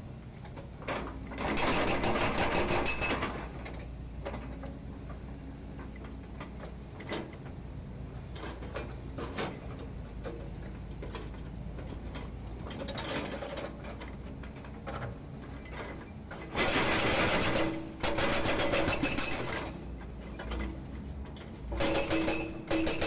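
Hydraulic breaker on a Volvo EC210D excavator hammering concrete in bursts of rapid blows: one about two seconds in, two close together past the middle, and another near the end. Between bursts the excavator's diesel engine runs steadily.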